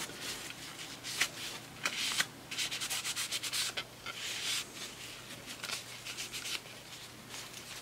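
Crumpled paper tissue rubbing over a plastic LED downlight diffuser lens in quick, uneven strokes, wiping off thermal grease that has squeezed through it.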